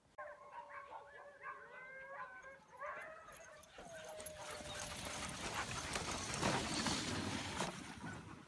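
Sled dogs whining and yipping in high, wavering cries. From about halfway through, a growing rush of noise rises as the team runs through snow, loudest near the end.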